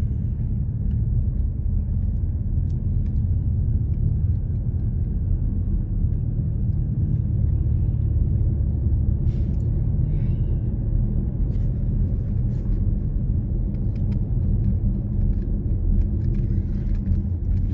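Steady low rumble of a car rolling slowly in highway traffic, heard from inside the cabin: road and engine noise.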